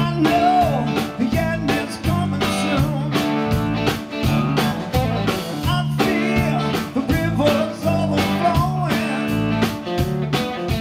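A live rock band plays a song with distorted electric guitar, electric bass and drums keeping a steady beat.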